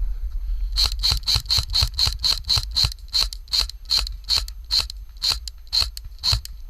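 Airsoft rifle firing a string of single shots: about four sharp clacks a second at first, then slowing to about two a second, some seventeen shots in all.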